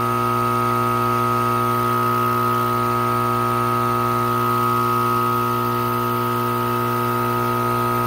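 Pondmaster AP-20 diaphragm air pump running with its cover off, a steady electric buzzing hum. It has just been rebuilt with new diaphragms and is pumping air freely from both sides with no hoses attached.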